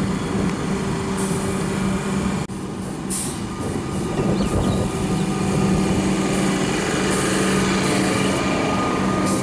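Comeng electric suburban train drawing in towards the platform: a steady electric hum with several held tones, growing a little louder in the second half. The sound cuts out for an instant about two and a half seconds in.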